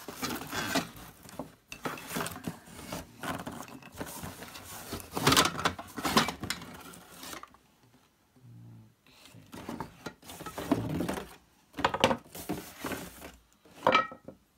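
Hoover vacuum cleaner attachment tools being unpacked and handled: irregular rustling and clattering knocks, with a quieter pause near the middle.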